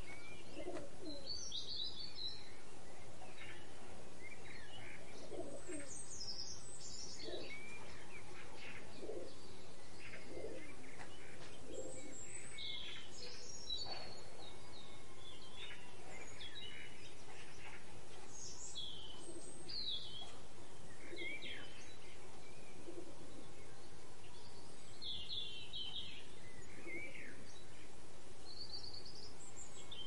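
Small songbirds chirping with short high calls every second or so, over a steady outdoor background. Low cooing notes sound underneath, mostly in the first half.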